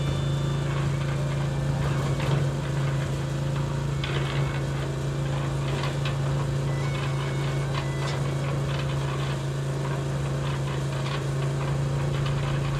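A small motor in a miniature toy vehicle runs with a steady, unchanging hum, with faint scattered ticks over it.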